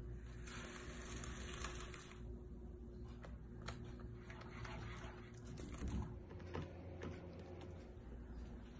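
Scattered light clicks and taps of a cooking spoon against a non-stick frying pan as tomato sauce is stirred, with a soft sizzling hiss from the pan over the first two seconds.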